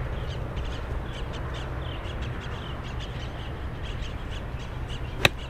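Birds calling again and again in short calls, then near the end one sharp click as a golf iron strikes the ball.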